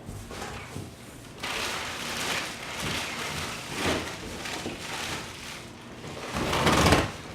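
Packaging being handled during unpacking: plastic wrapping rustling and crinkling in uneven swells, loudest near the end.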